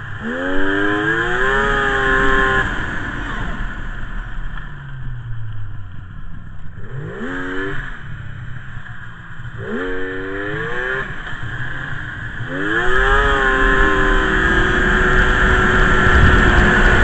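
Polaris XLT snowmobile's two-stroke engine revving up four times as the throttle is opened, each time rising in pitch, and dropping back quieter in between. Near the end it is held at speed, running steady and loud with track and wind rush.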